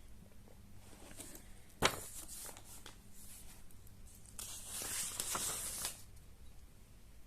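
Household handling sounds in a small room: a sharp knock about two seconds in, then about a second and a half of rustling or scraping.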